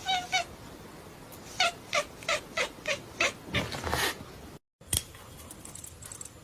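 A cat meowing: one short meow, then a quick run of about seven short meows in a row, roughly three a second.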